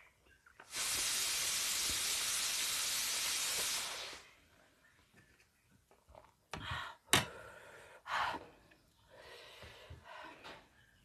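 A long, steady slurp as spicy chilli noodles are sucked into the mouth, lasting about three seconds, followed by a few short mouth noises and hissing breaths while she chews the hot noodles.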